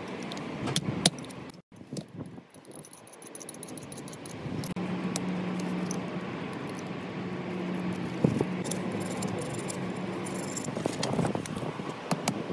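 Metal clinks and rattles of handling steel tool parts, with a steady low hum through the middle.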